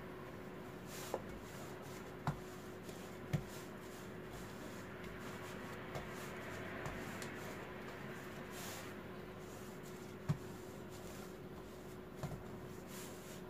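Wooden rolling pin rolling out butter-layered dough on a floured counter during lamination: soft, steady rubbing strokes with a few light knocks scattered through.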